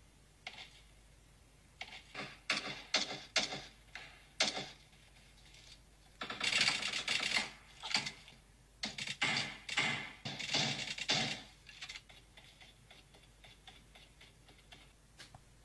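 Gunfire in PUBG Mobile played on an iPhone 12: a suppressed rifle, the VSS, firing in bursts of rapid, dry clicks. Short clusters come in the first few seconds, then two longer strings about six and nine seconds in.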